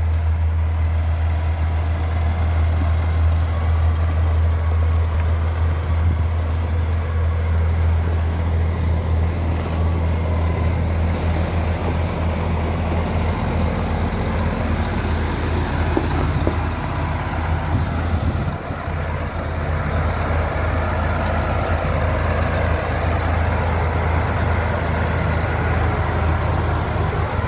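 Heavy dump truck's diesel engine idling, a deep steady rumble that dips briefly about two-thirds of the way through.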